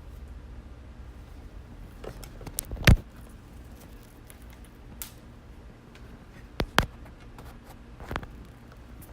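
Scattered sharp clicks and knocks from handling audio equipment, the loudest about three seconds in and a quick pair a little before seven seconds, over a steady low hum.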